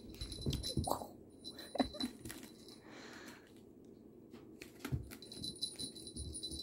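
Kittens scampering and pouncing on carpet while playing with a wand toy: scattered soft thumps and scuffles, with a short kitten mew about a second in.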